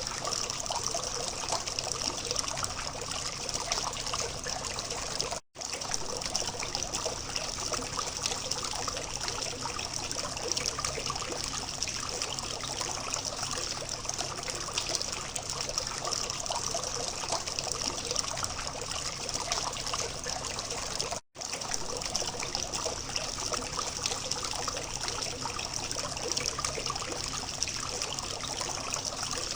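Water from a simple fountain trickling and splashing steadily, cutting out for an instant twice.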